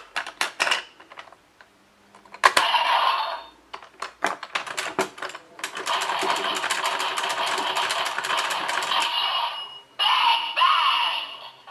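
Toy morpher (DX Geartlinger) worked by hand: quick runs of plastic ratchet clicks as its gear dial is spun, broken by short electronic sound effects from its small speaker, then a longer electronic jingle and a voice call from the toy for the Megazord sequence.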